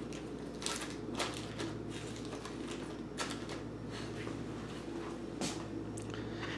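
Irregular light clicks and rustles of packets of fishing hooks being handled and hung in the top tray of a plastic tackle box.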